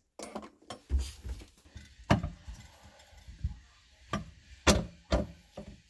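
Scattered knocks and clicks of a garbage disposal's metal mounting ring being pushed up and turned against the sink's mounting assembly, with the mounting lugs catching as it engages. The loudest knocks come about two seconds in and again near the end.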